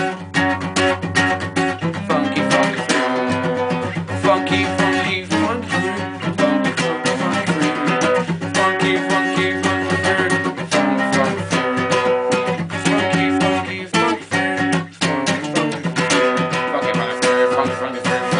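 Acoustic guitar strummed, a steady rhythm of chords played as an instrumental passage.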